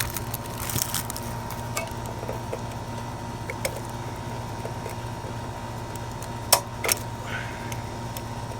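Steady electrical-mechanical hum of a running central air conditioner outdoor unit, with scattered small clicks and clatter of parts being handled and two sharp clicks close together about three-quarters of the way through.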